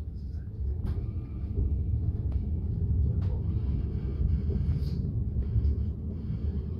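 Steady low rumble of an SBB S-Bahn passenger train running along the line, heard from inside the carriage, with a few faint clicks over it.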